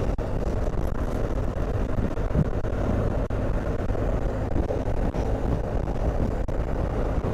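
Motorcycle cruising at a steady highway speed: a constant low rumble of engine, tyres and wind against the rider.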